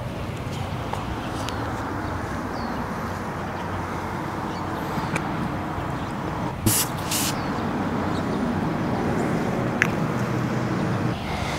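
Steady background rumble of outdoor city traffic, with two short hisses from an aerosol spray can about two-thirds of the way through.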